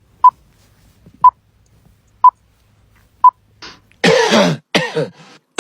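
Four short electronic beeps of one pitch, evenly spaced one second apart: a countdown. About four seconds in, a person's voice begins.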